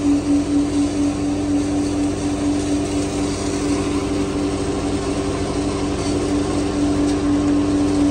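A truck-mounted engine and pump running with a steady hum while a high-pressure water jet hisses against the vacuum truck's outlet valve, flushing out pebbles stuck in the gate valve.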